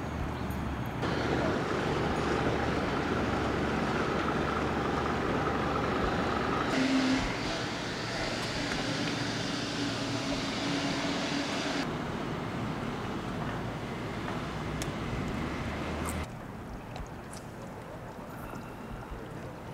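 Steady engine noise over outdoor background, with a deep hum and, for a few seconds in the middle, a steady droning tone. The sound changes abruptly several times.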